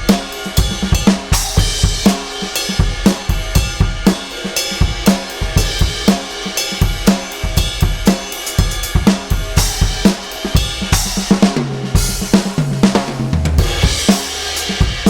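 Sampled acoustic drum kit from Addictive Drums 2, triggered live from an EFNOTE 5 electronic kit. It plays a steady groove of kick, snare, hi-hat and cymbals, with a fill of hits stepping down in pitch about twelve seconds in.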